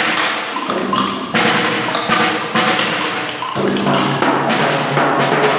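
Percussion played together by a group: a snare drum, a frame drum and other hand percussion struck in a dense, irregular clatter, with some ringing tones underneath.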